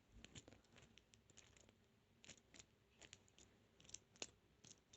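Faint, irregular metallic clicks and scratches of a pick and tension wrench working the pins inside a 32mm padlock's keyway, with a sharper click about four seconds in.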